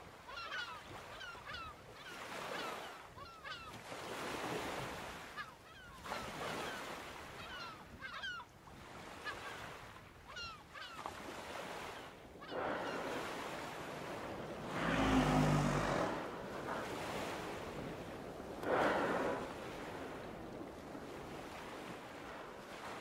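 Seabirds calling in quick, squeaky chirps over a wash of sea water through the first half. Then loud, breathy humpback whale blows: a deep exhalation about two-thirds of the way through and another a few seconds later.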